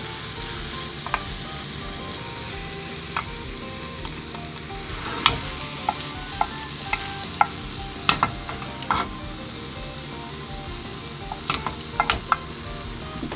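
Beaten egg sizzling in oil in a square tamagoyaki pan while a slotted spatula pushes and rolls the omelette, its edge clicking and tapping against the metal pan a dozen or so times, in a cluster in the middle and again near the end.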